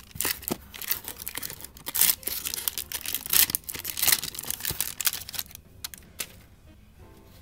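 Foil wrapper of a 1991 Upper Deck basketball card pack being torn open and crinkled by hand: a rapid, irregular run of sharp crackles and tearing sounds that stops about six seconds in.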